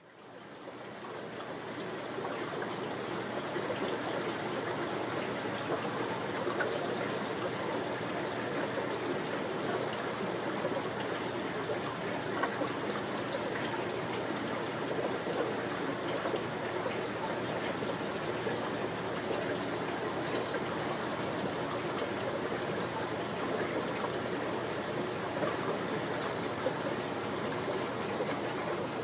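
Steady trickling and splashing of water circulating in an aquarium, fading in over the first couple of seconds.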